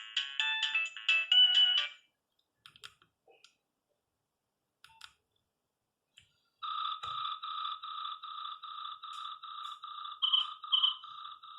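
Nokia 3510 mobile phone playing ringtones. A fast multi-note melody ends about two seconds in, a few faint clicks follow in a near-silent pause, and then, past the middle, the next tone starts: an even pulsing beep at about three pulses a second, with two brighter chirps near the end.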